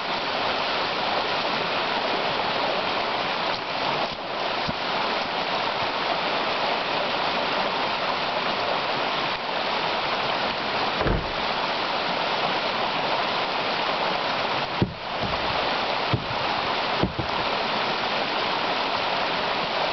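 Small mountain river rushing over rocks: a steady, even hiss of fast-flowing water. A few brief low thumps come about halfway through and again near the end.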